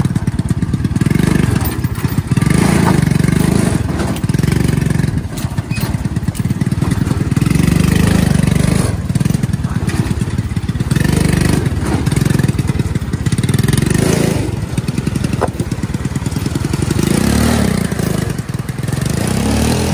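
Engine of a David 995 farm tractor running hard under load as it hauls its trailer over rough ground, the level swelling and easing every few seconds.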